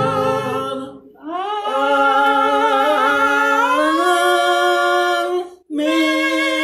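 Voices singing long held notes without accompaniment, closing a gospel hymn. After a short break about a second in the pitch slides up, steps up again near four seconds, and after a brief break near the end one last note is held.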